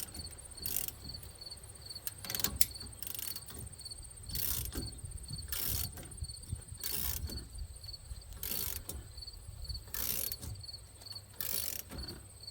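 Crickets chirping steadily in a fast, even pulse, with short scraping, hissing noises from work on the truck repeating about every second and a half and one sharp click a little over two seconds in.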